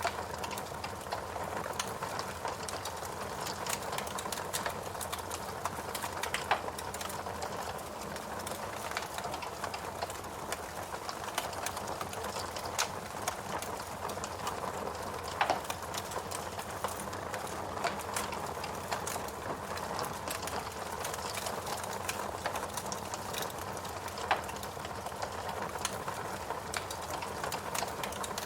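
Log fire in a fireplace crackling steadily, with frequent small snaps and three louder pops: about a quarter of the way in, near the middle, and near the end.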